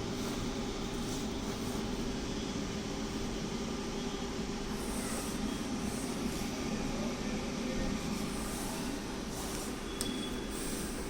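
Automatic tape cutting machine running with a steady hum, with a few faint sharp clicks spread through.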